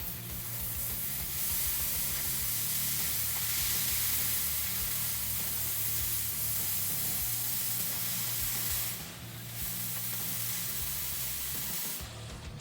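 Steady loud hiss, like a spray or jet of air, that breaks off briefly about nine seconds in.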